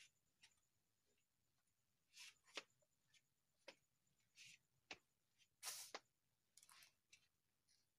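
Near silence broken by a dozen or so faint short rustles and clicks at uneven intervals, the loudest about six seconds in.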